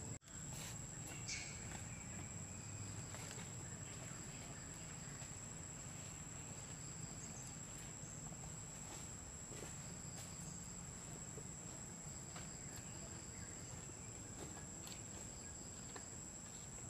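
Steady outdoor insect drone: one unbroken high-pitched tone over a faint low hum, with a few soft scattered clicks.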